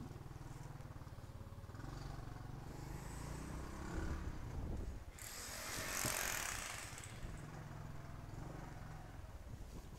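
Small motorbike engine running at low speed, a steady low pulsing. About five seconds in, a loud rushing hiss swells up for a second or two.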